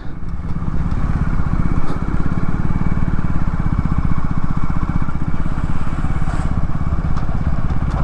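Motorcycle engine running steadily at low speed, its exhaust firing pulses clearly heard, as the bike rolls slowly across the forecourt and pulls up at the fuel pump.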